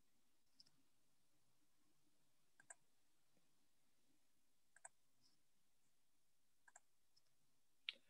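Near silence broken by about five faint, short clicks roughly two seconds apart, the last one near the end the loudest: a computer mouse being clicked.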